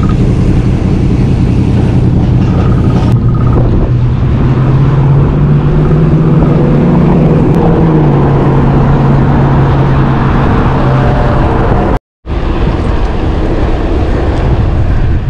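Car traffic running steadily along a multi-lane street, with a low engine hum through the middle stretch. The sound cuts out for an instant about twelve seconds in.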